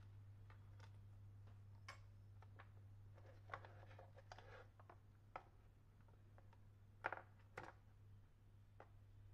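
Quiet clicks and taps of a screwdriver working on a Philips electric iron's plastic housing during disassembly, the sharpest a little after seven seconds in, over a steady low hum.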